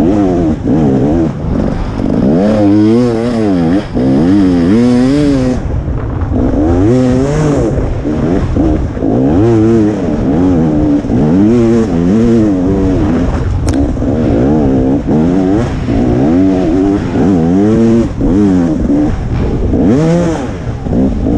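KTM 300 XC two-stroke dirt bike engine revving up and down over and over as it is ridden hard through tight woods trail, the pitch rising and falling about once a second. A single sharp click about halfway through.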